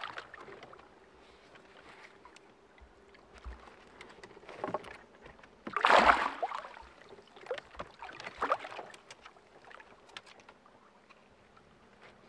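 A large carp thrashing in a landing net alongside a small boat, splashing water in a few irregular bursts, the loudest about six seconds in, with small knocks from the net and boat in between.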